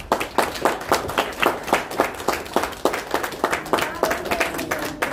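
Congregation applauding, sharp hand claps coming about five a second without a break.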